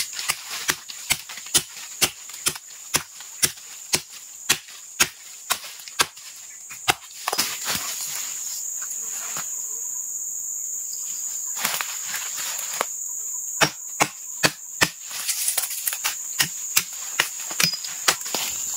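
Machete chopping at the bark and debris on a half-buried ulin log: sharp strikes about two a second, pausing for several seconds in the middle and then resuming. A steady high insect drone, crickets or cicadas, runs underneath.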